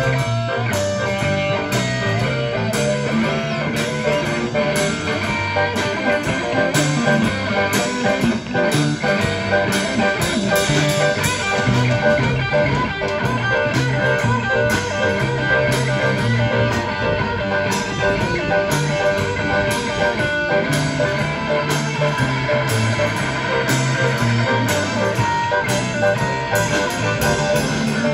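Live rock 'n' roll band playing an instrumental stretch, electric guitar to the fore over drums keeping a steady beat.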